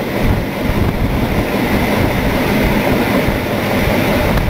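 Heritage steam train running along the track, heard through an open window: a steady, loud rumble and rush of the moving train.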